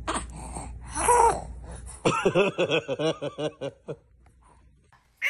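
Laughter: a quick run of short pitched 'ha' pulses starting about two seconds in and lasting under two seconds, after a brief loud voice sound about a second in.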